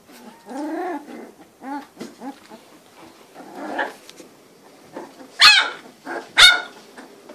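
Litter of three-week-old Cane Corso puppies whining and whimpering in short pitched calls, then two loud, high-pitched yelps about a second apart near the end.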